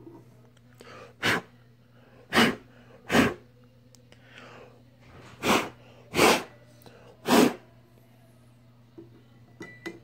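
A person blowing six short, sharp puffs of air, in irregular pairs and singles over several seconds, over a steady low hum. A few small clicks of handling come near the end.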